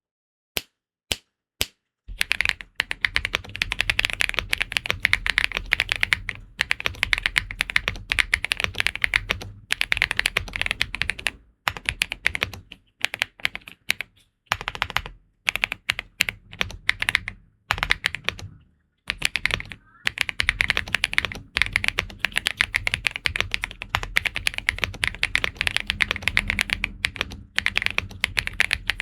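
Furycube F75 Ultra mechanical keyboard with Kailh Jazz White switches, PBT Cherry-profile keycaps and an aluminium case, being typed on: a few single keystrokes, then fast continuous typing in runs with brief pauses. It has a creamy, thocky sound.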